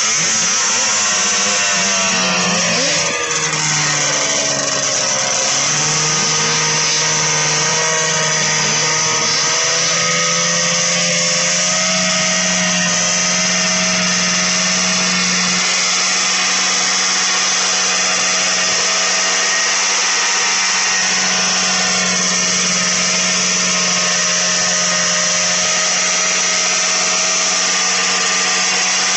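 Two vintage two-stroke snowmobile engines, one of them a Polaris 340, idling at the drag-race start line. Their pitch rises and dips with a few throttle blips in the first several seconds, then both hold a steady, loud idle.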